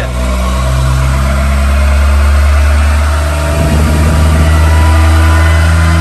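Honda K20 four-cylinder engine running in gear on a chassis dyno, driving the front wheels on the rollers at a steady, moderate speed with a nearly constant pitch.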